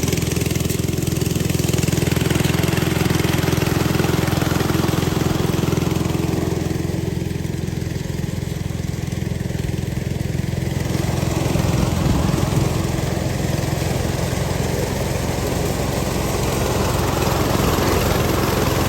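Corn sheller's engine running steadily at a constant speed.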